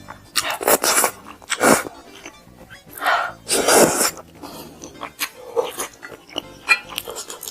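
Close-miked eating sounds: several loud bites and mouth noises in the first four seconds, then softer chewing, over faint background music.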